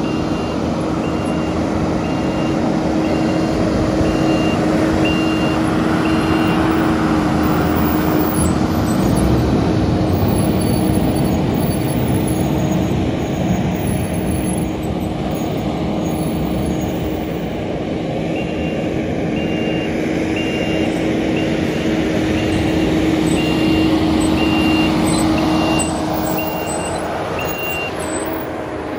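Heavy construction equipment engine running steadily, with a reversing alarm beeping about once a second for the first several seconds and again through the later part.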